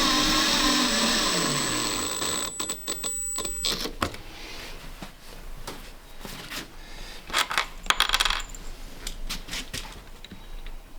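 A motor-driven machine winding down after being switched off, its pitch falling over the first couple of seconds until it stops, followed by scattered light clicks and knocks.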